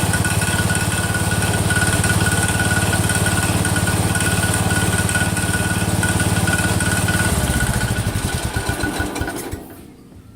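Freshly rebuilt Kohler single-cylinder engine of a Cub Cadet 102 garden tractor running steadily with a thin high-pitched whine over it, which the owner puts down to the front pulley. About seven seconds in it is shut off, and the engine slows and coasts to a stop.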